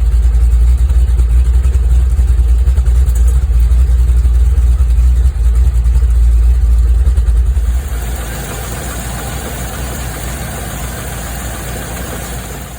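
Land Rover Discovery 2's V8 engine idling, a steady heavy low rumble that drops in level about eight seconds in, leaving a quieter, hissier engine sound.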